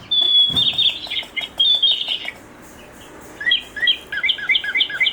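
Electronic talking toy bird chirping. A run of high chirps comes first, then a short pause. From about three and a half seconds in, rapid, evenly repeated chirps follow, about four a second.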